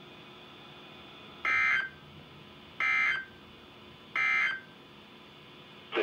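Three short buzzy SAME digital data bursts, about 1.3 s apart, from a NOAA Weather Radio broadcast: the end-of-message code that closes the Required Weekly Test.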